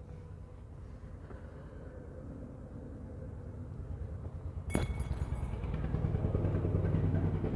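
An engine running nearby with a steady low pulse, growing louder from about five seconds in. A sharp metallic click about halfway through.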